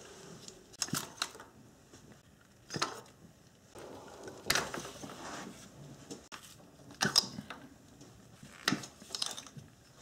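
Scattered clicks and light clinks, one every second or two, of ignition coil packs being unplugged and pulled out of the engine's valve cover.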